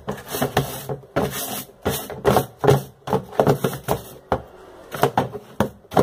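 Green scouring sponge scrubbing wet plastic with detergent: quick, irregular rasping strokes, a few a second, easing off briefly around four seconds in.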